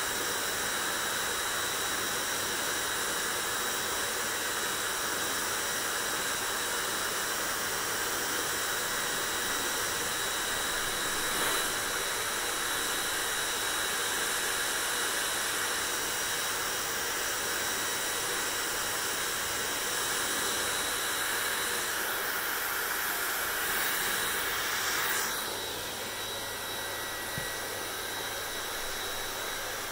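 Hair dryer running with a steady airy rush and a faint high whine. About 25 seconds in its sound changes and drops a little, with a low hum coming forward.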